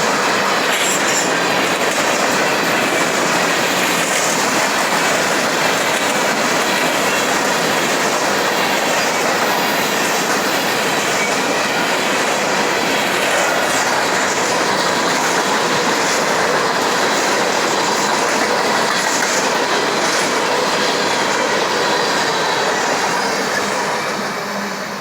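CSX freight train's cars rolling past close by: a steady, loud din of steel wheels on the rails. It begins to fade in the last second or two as the train passes.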